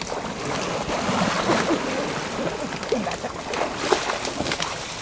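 Muddy floodwater sloshing and splashing around a person's legs as he wades quickly through thigh-deep water, a steady churning with no break.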